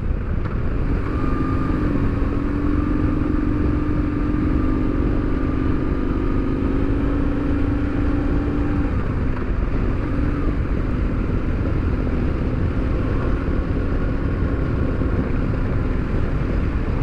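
Motorcycle being ridden at a steady cruising speed: an even engine note over a constant rush of wind and road rumble, with the note shifting slightly about nine seconds in.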